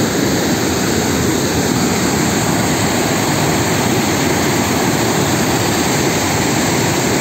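A waterfall and rapids: white water rushing loudly and steadily over rock, an even wash of noise with no breaks.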